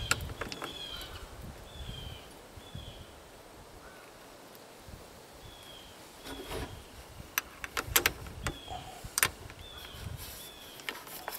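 Sharp metallic clicks and clinks of a wrench tightening a nut on a battery terminal cable lug, several in a cluster between about six and a half and nine and a half seconds in. A bird calls repeatedly in the background with short falling notes.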